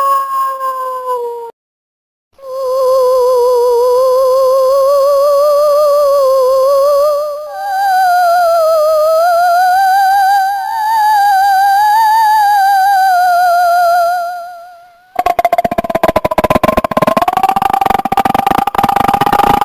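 Horror sound effects: a howl tails off in the first second and a half, then after a short silence come two long, eerie wavering wails with a quick vibrato, the second higher and slowly rising and falling. Near the end a harsh, buzzing, rattling wail takes over.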